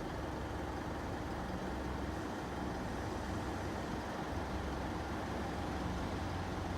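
Steady low rumble of motor traffic and street noise, with no distinct events.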